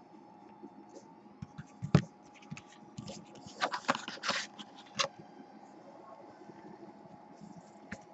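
Foil trading-card pack wrapper being torn open and crinkled by hand, with a sharp click about two seconds in and a burst of crinkling around four seconds, then quieter handling of the card.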